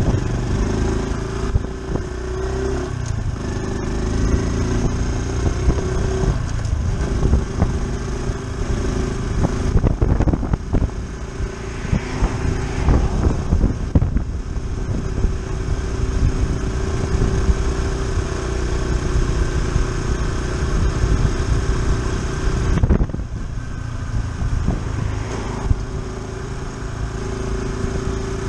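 Honda Super Cub C125's single-cylinder four-stroke engine running steadily under way, with wind and road rumble. The engine note dips briefly and picks back up twice: about a quarter of the way in, and again near the end.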